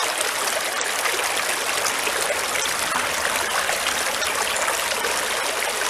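Shallow creek water running steadily through a small metal gold sluice and around the rocks beside it, an even, unbroken sound of flowing water.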